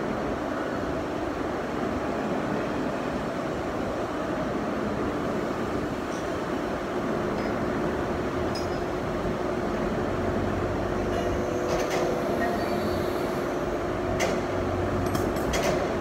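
Heavy engine lathes running in a machine-shop hall: a steady mechanical hum with a constant tone underneath, and a few sharp metallic clicks in the last few seconds.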